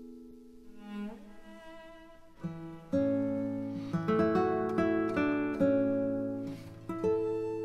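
Background music on plucked strings, guitar-like: a few held notes, a note sliding up about a second in, then slow picked notes from about two and a half seconds in.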